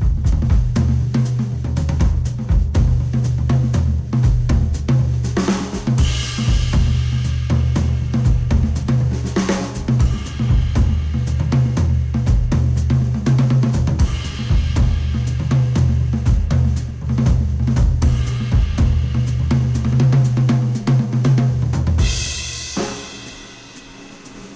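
Instrumental music with a full drum kit and heavy bass, played through Sennheiser HD800 S open-back headphones and picked up by microphones. Near the end the drums and bass drop out, leaving a quieter sustained layer.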